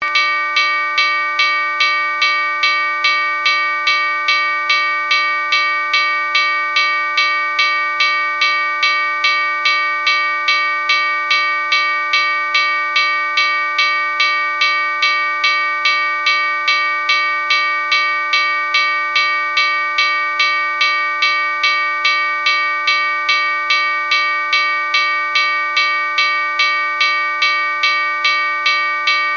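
Railroad crossing bell ringing steadily, struck at an even pace of about two strikes a second, with each ring carrying on into the next.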